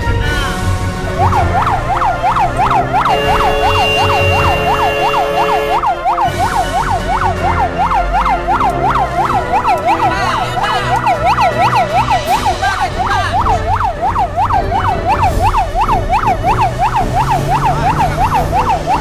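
Fire truck's siren on a fast yelp, rising and falling about four times a second, starting about a second in, over the low rumble of the truck's engine heard from inside the cab.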